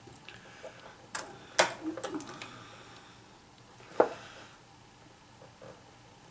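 Scattered sharp clicks and knocks of hand work on a humidifier's housing as the power cord's strain relief is worked loose, a cluster in the first half and one sharp click about four seconds in.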